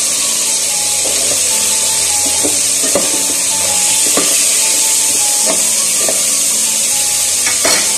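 Chicken pieces with garlic and onion sizzling in oil in an aluminium pot, a steady hiss. A metal ladle scrapes and knocks against the pot several times as the chicken is stirred.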